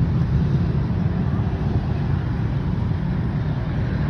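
A steady low rumble of background noise with no distinct separate event.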